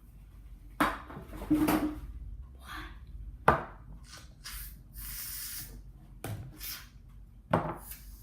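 Knocks and clatter of containers and utensils being handled on a tabletop, with a short hiss about five seconds in.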